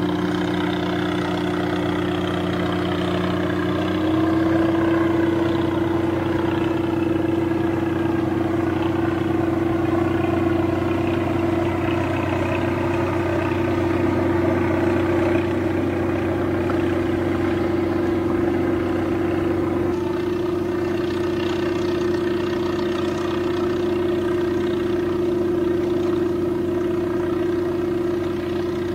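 Steady engine drone of a vessel in the harbour. About four seconds in, the note steps up slightly and grows a little louder.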